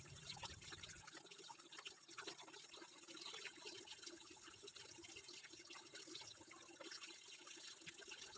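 Near silence: faint steady hiss with a few scattered small ticks.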